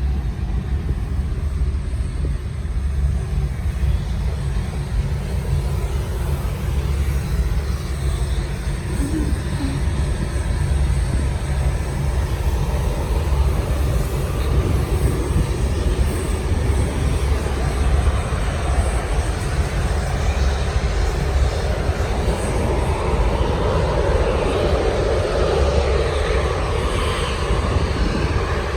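Steady low rumble of a moving vehicle, engine and road noise.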